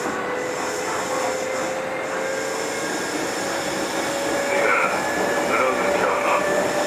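Kintetsu 2430 series electric train running, heard from inside the car: steady wheel and rail noise with a motor whine that rises slowly in pitch as the train gathers speed.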